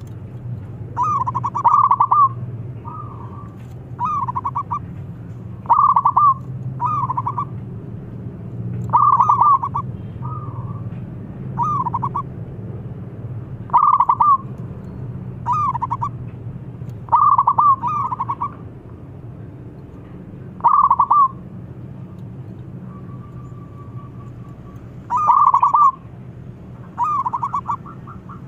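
Zebra dove (perkutut) singing its staccato cooing song: short phrases of rapid notes, repeated every one to two seconds with a few longer pauses. A steady low hum lies beneath.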